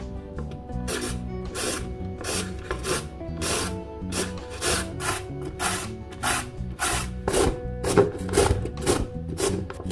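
A carrot being shredded on a plastic julienne grater with metal blades: short rasping strokes repeated about two to three times a second.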